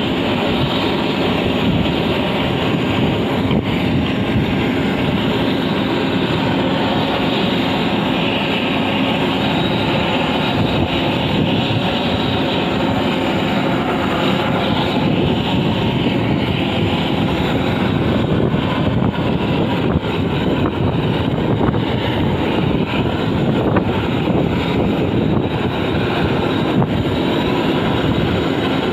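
Handheld butane canister torch burning with a steady hiss as its flame heats a bitumen waterproofing membrane.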